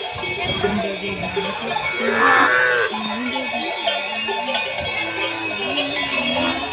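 Herd of zebu cattle moving together, many bells clanking at once, with lowing calls mixed in and a louder call about two seconds in.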